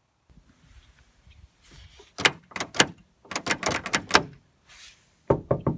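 Knocking on a door: three bursts of quick raps, about three, then five, then four knocks, the first starting about two seconds in.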